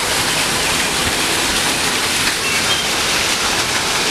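A small waterfall splashing steadily over rocks.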